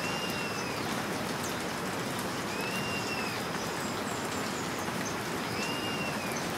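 Steady hiss like rain, with a faint short whistle that rises and falls, repeating three times about three seconds apart.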